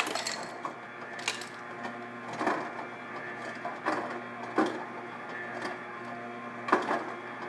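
GE Profile refrigerator's door ice dispenser running, its motor humming steadily while single ice cubes drop into the glass with a sharp clink about five times. Only a cube every second or so comes out: the ice maker has made barely any ice in 24 hours.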